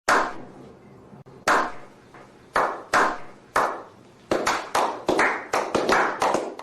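A series of sharp claps, each ringing out briefly. They start sparse, then quicken to about four or five a second from a little past the midpoint.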